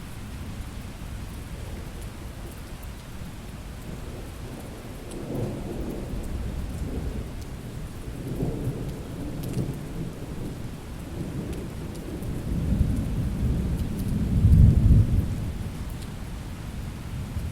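Thunderstorm: steady rain with rolling thunder. The rumble builds about five seconds in, swells again a few seconds later, and peaks loudest near the end before fading.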